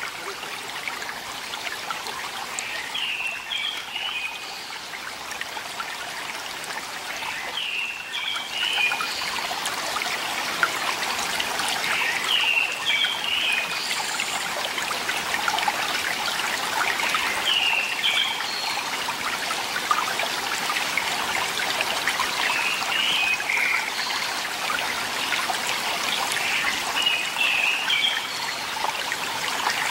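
Mountain stream trickling and splashing over rocks, a steady watery hiss that grows louder after about eight seconds. A small bird's short phrase of high notes repeats about every five seconds.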